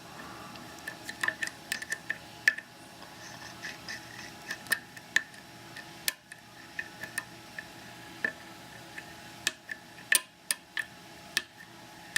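Flat flag dimple pick working the pins of a Mul-T-Lock 7x7 dimple lock cylinder: a string of light, irregular metallic clicks and ticks as pins are probed and set under tension.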